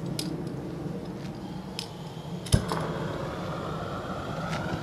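Propane roofing torch lit about halfway through: a sharp pop as the flame catches, then the steady roar of the burner as it starts heating torch-down membrane.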